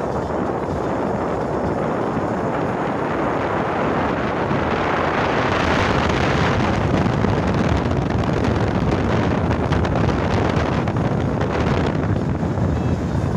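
Wind blowing across a phone's microphone: a steady, loud rushing rumble, a little stronger in the middle.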